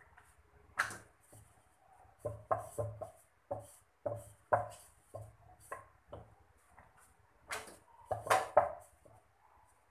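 Wooden rolling pin rolling out chapati dough on a steel plate, with a string of uneven knocks and taps as the pin hits the plate. The loudest knocks come about eight seconds in.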